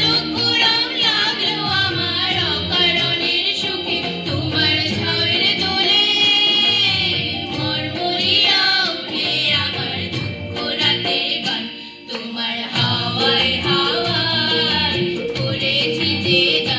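A group of women singing a song together into microphones, with instrumental accompaniment keeping a steady beat; the singing drops away briefly about twelve seconds in before the next line.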